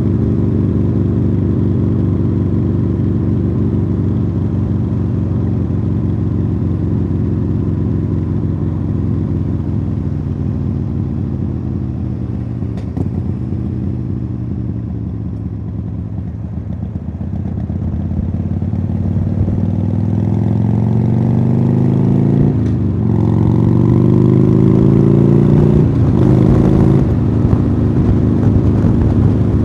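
Harley-Davidson Sportster Iron 883 air-cooled V-twin running through Khrome Werks Tapered aftermarket exhausts while riding. The engine note sinks slowly as the bike rolls off and slows. It then climbs again under acceleration, with two quick upshifts near the end.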